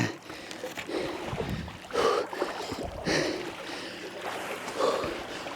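Water sloshing and swirling around a person wading through deep water, with a surge of splashing roughly every second as each stride pushes through.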